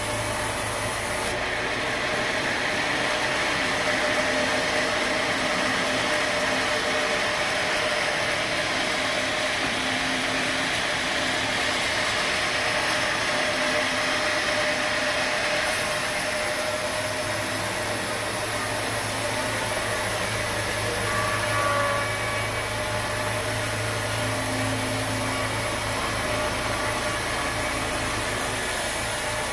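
Sawmill saw running steadily through an oak log, a continuous cutting noise over the hum of the mill's motor.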